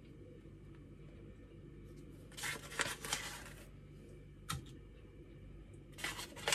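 Small plastic bag crinkling as it is handled and opened, in two rustling spells: one about two seconds in lasting just over a second, and a shorter one near the end, with a single short tap in between.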